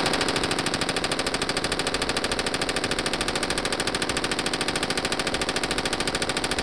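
Belt-fed 5.56 light machine gun firing one long, unbroken full-auto burst, a very fast, even rattle of shots beginning abruptly.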